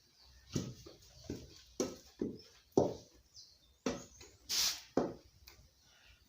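Irregular knocks and thuds of kitchen work over a firewood fire, about eight in six seconds, with a short hiss about four and a half seconds in.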